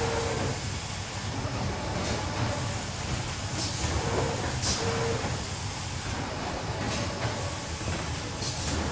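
Automatic board-feeding machine with pneumatic suction arms running: a steady mechanical hum and hiss, with short sharp hisses of air every second or two as the suction cups grip and release the boards.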